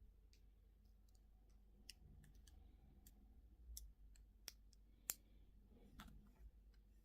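Faint, scattered small clicks and taps from toy and candy packaging being handled, a few a second at most, the sharpest a little after five seconds in.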